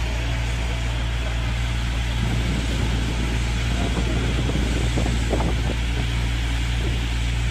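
Fire engine running steadily with a low engine hum, driving the pump that feeds a foam hose, over an even hiss of spray. Faint voices come through about two to six seconds in.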